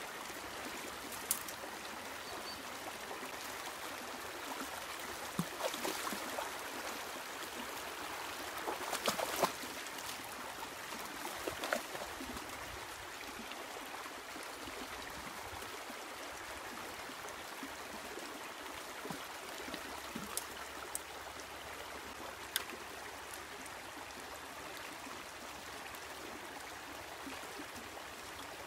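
Shallow, rocky creek running steadily. Short splashes and knocks from dogs wading through the water and over the stones cluster a few seconds in and again around the middle.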